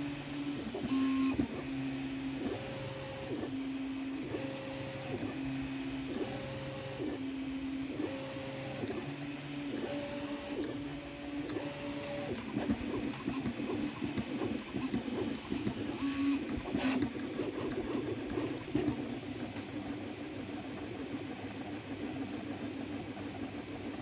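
Original Prusa Mini 3D printer printing: its stepper motors whine in steady tones that jump between a lower and a higher pitch about once a second as the print head moves, then turn to a busier, rapidly changing buzz about halfway through. One sharp click sounds about two-thirds of the way in, over a steady background hiss.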